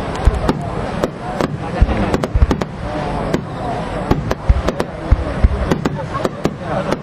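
Large aerial firework shells going off in quick, irregular succession: many sharp bangs, some with deep booms, while spectators' voices carry between them.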